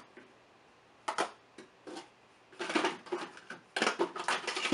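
Makeup palettes and cases clattering as a vanity drawer is rummaged through by hand. Irregular clicks and knocks, a few scattered at first, then two denser runs in the second half.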